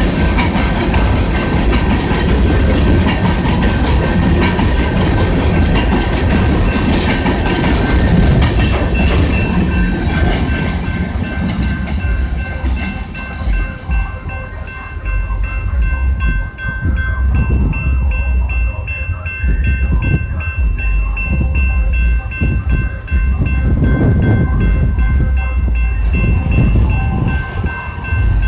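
Freight train's coal hopper cars rolling past on the rails, wheels clicking over the joints. The rolling noise thins out after about twelve seconds as the end of the train moves away. A railroad crossing bell rings steadily throughout.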